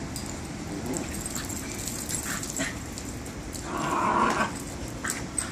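Two puppies playing and scuffling, with scattered small clicks and a brief louder dog sound about four seconds in.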